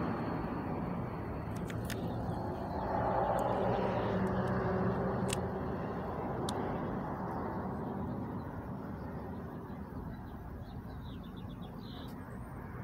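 Outdoor road-traffic noise: a vehicle passing by, growing louder a few seconds in and then slowly fading away.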